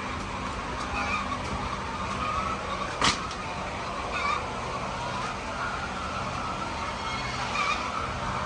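A flock of chickens calling over a steady low machine hum, short calls repeating throughout, with one sharp click about three seconds in.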